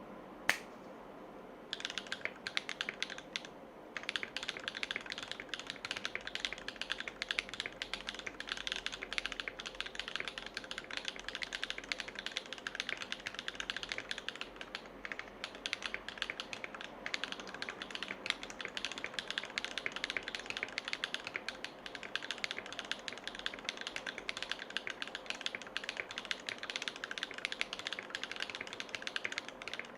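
Fast, continuous typing on a Percent Canoe mechanical keyboard with lubed Everglide Dark Jade (Moyu) tactile switches, each keystroke a sharp clack as the switch bottoms out. A single click comes about half a second in, the typing starts just under two seconds in, and it breaks off briefly near four seconds.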